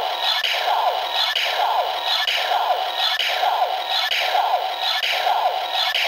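Electronic standby sound of the DX Leangle Buckle toy belt: a short falling electronic warble repeating a little more than once a second through the toy's small speaker. It signals that the card is set and the buckle is ready for its cover to be opened to transform.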